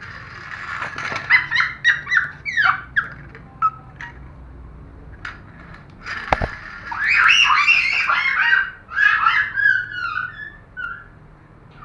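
Children squealing and shrieking excitedly in short high-pitched bursts, in two spells, with a single thump about six seconds in.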